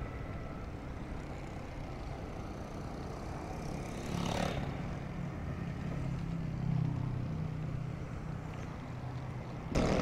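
Steady road and engine noise heard while riding along a busy city road, with a low engine hum that grows stronger for a few seconds in the middle. There is a brief swell about four seconds in.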